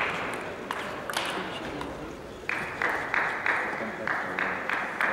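Table tennis ball clicking sharply off bats and table in a rally over a background of crowd noise. About halfway through, the crowd breaks into rhythmic clapping in unison, about three claps a second, as the point ends.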